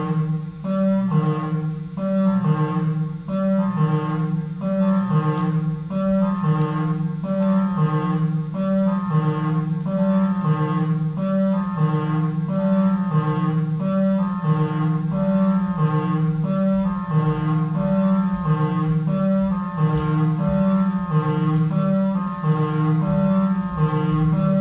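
Instrumental music: a short figure of low, sustained notes repeating over and over at an even pace, with higher notes above it.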